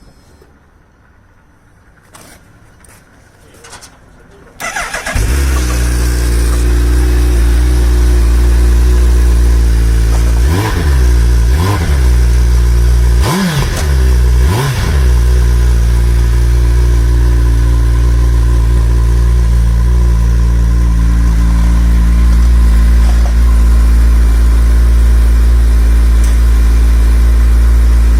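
Suzuki Hayabusa third-generation inline-four engine with its stock exhaust starting after a few faint clicks, then idling steadily. About five seconds after it catches, it is blipped four times in quick succession before settling back to idle.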